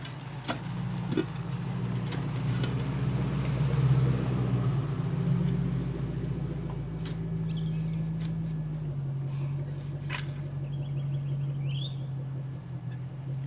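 A car engine running steadily, its pitch stepping down a little about nine seconds in, with a few sharp clicks and birds chirping now and then.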